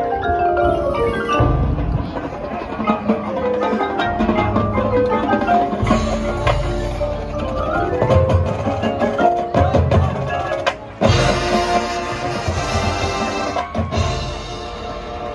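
Marching band music: the front ensemble's marimbas and other mallet percussion play quick runs of notes over drum hits. About eleven seconds in there is a brief break, then the band comes in fuller and louder.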